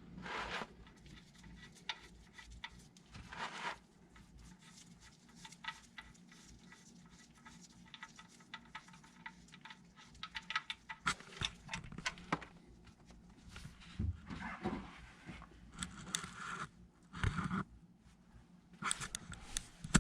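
Scattered light clicks, taps and knocks from hand tools working at the oil drain plug under the vehicle, with a few louder clatters in the second half.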